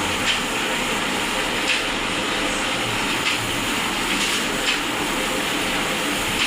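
Electric arc welding: a steady crackling hiss from the arc, with a few sharper pops.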